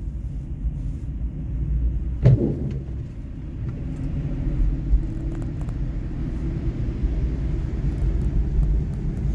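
Steady low rumble of a car being driven, heard from inside the cabin, with a single thump about two seconds in.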